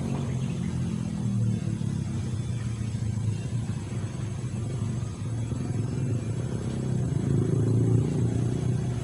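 Low, steady rumble of an engine running, growing louder a little after halfway and easing near the end.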